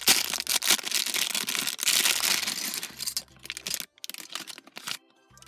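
A thin plastic bag crinkling and tearing as it is pulled open by hand, followed by a few light clicks as small plastic model parts are tipped out onto the table. Faint music starts near the end.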